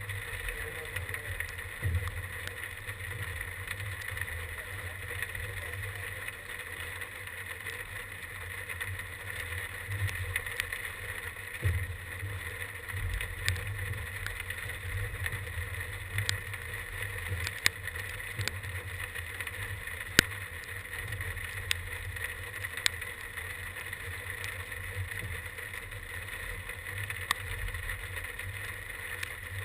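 Wind rumbling unevenly on the microphone, with a steady high hum and scattered light ticks.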